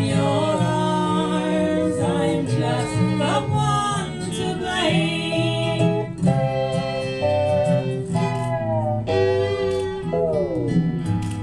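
Live folk band playing with acoustic guitar, electric guitar and fiddle, with singing over it. Near the end a note slides down in pitch and a low note is held.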